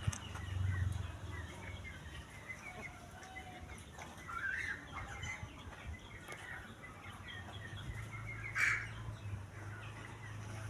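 A flock of chickens chirping and calling softly in many short scattered notes, with one louder call about three-quarters of the way through, over a low steady hum.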